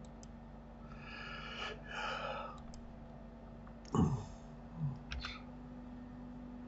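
Quiet desk sounds over a steady low hum: a soft breath about a second in, a sudden thump at the microphone or desk about four seconds in, and a few computer-mouse clicks soon after.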